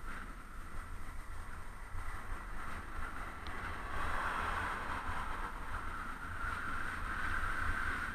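Wind buffeting a bicycle-mounted camera's microphone over the rolling noise of the bike's tyres on a rough asphalt lane, getting louder about halfway through.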